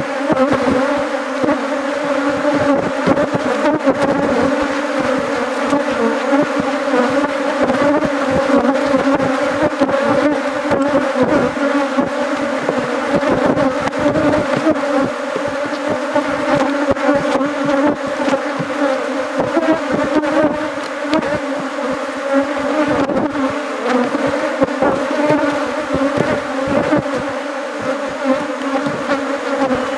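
Honeybees buzzing in a dense, steady hum around an open box hive, the colony stirred up as its frames are lifted out.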